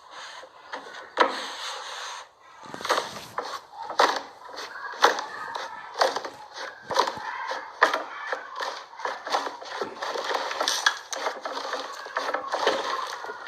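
Slime being squeezed and worked by hand: an irregular run of sharp clicks, crackles and squelches.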